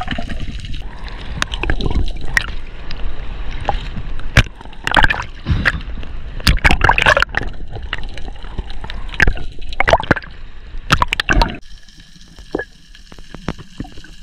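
Water sloshing and gurgling around a spearfisher's action camera, broken by many sharp clicks and knocks. About eleven and a half seconds in it changes abruptly to a quieter stretch with only scattered clicks.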